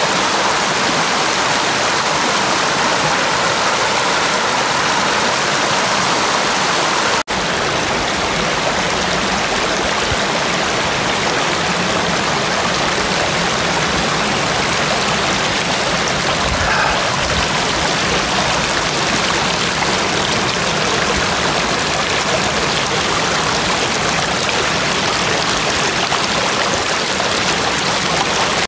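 Shallow, rocky stream rushing and splashing over stones in a steady, loud flow, with a split-second break about seven seconds in.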